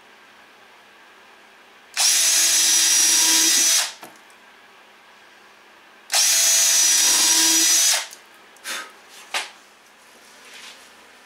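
Cordless drill drilling into a wooden roof spar in two steady runs of about two seconds each, four seconds apart, at an even pitch. Two short knocks follow near the end.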